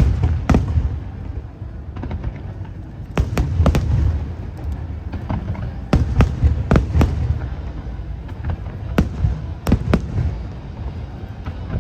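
Aerial fireworks shells bursting in a display: sharp bangs in clusters every few seconds, over a low rumble.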